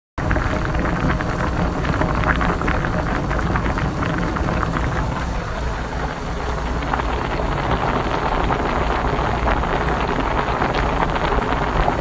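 Water at a full rolling boil in a Russell Hobbs glass electric kettle: steady bubbling with dense crackling pops and a low rumble.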